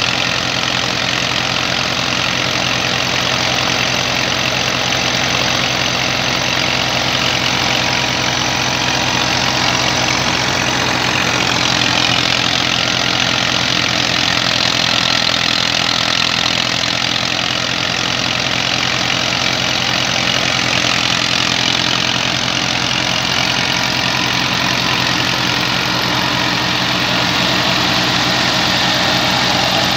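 Massey Ferguson 240 tractor's three-cylinder Perkins diesel running steadily under load, driving a wheat thresher through its PTO shaft, with the thresher's drum and fan adding a dense, even whirring.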